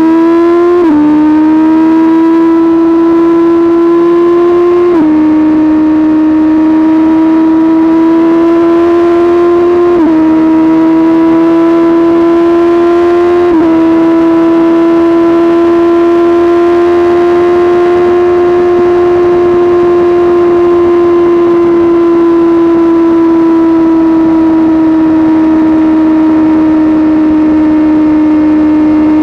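Suzuki GSX-R sportbike engine running loud at high revs. It pulls through the gears with upshifts about a second in, then near five, ten and fourteen seconds, each a quick dip in pitch. After that it holds a steady high-revving cruise, easing off a little toward the end.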